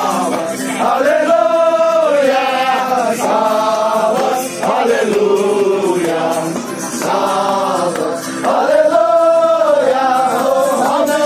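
Music: a chanted vocal line in long, rising-and-falling phrases over a steady low drone.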